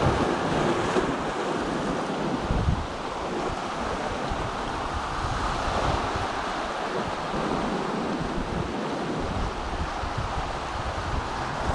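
Ocean surf washing and breaking over shoreline rocks, a steady wash of water, with gusts of wind buffeting the microphone now and then.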